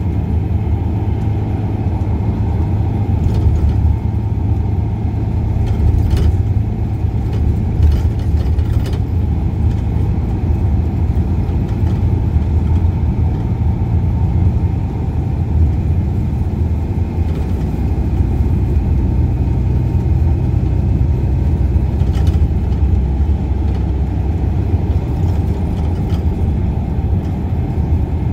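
Bus driving at road speed, heard from inside on the upper deck: a steady low engine and road drone, with a few brief rattles from the bus's fittings.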